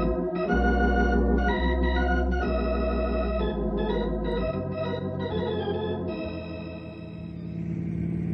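Organ music bridge: sustained chords over a deep bass note, changing about every second, fading out about seven seconds in. A car engine sound effect fades in near the end.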